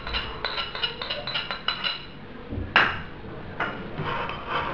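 A spoon stirring yeast into warm milk in a small bowl, with a quick run of light clinks against the bowl for about two seconds. Near the middle there is one louder clink, and then only a few faint ones.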